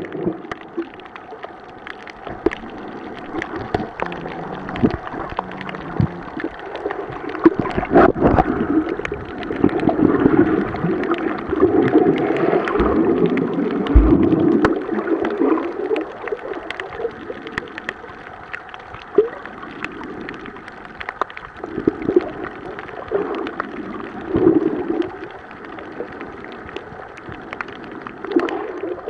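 Underwater sound picked up by a snorkeler's camera: muffled gurgling water surge that swells and fades in irregular waves, loudest about a third of the way in, with scattered sharp clicks throughout.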